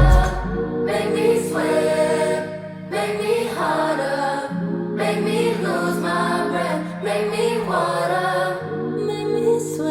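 Pop song played back from vinyl through a hi-fi system with AudioVector R3 Arrete loudspeakers: layered, choir-like female vocals over sustained bass notes.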